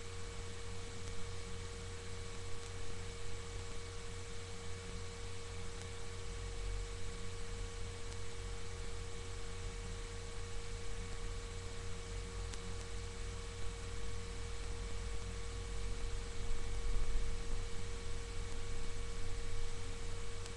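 Steady electrical hum: a low hum with a constant mid-pitched tone over it, unchanging throughout, picked up through a webcam's microphone.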